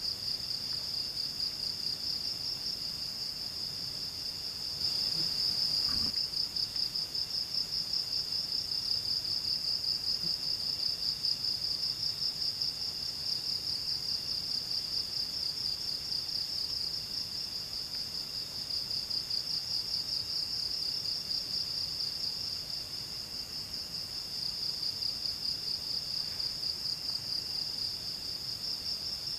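Chorus of crickets trilling steadily, with a second insect calling on and off in short phrases underneath. There is a soft low knock about six seconds in.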